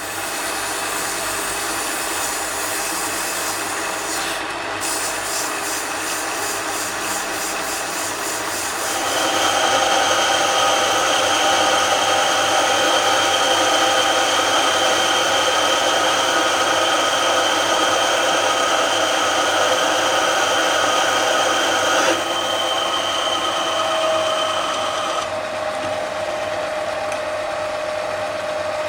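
Mini lathe running with a steady machine whine, likely turning metal; it starts abruptly, gets louder about nine seconds in, and drops back twice later on.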